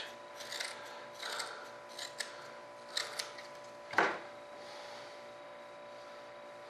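Shears snipping and rustling fiberglass cloth in a series of short cuts, with one sharper, louder clack about four seconds in, then only a faint steady hum.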